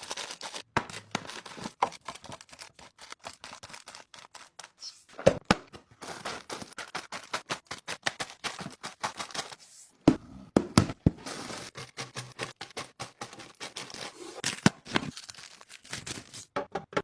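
Crinkling and tearing of packaging, with a dense run of small clicks and a few sharper taps, the loudest about five seconds in and again around ten to eleven seconds in.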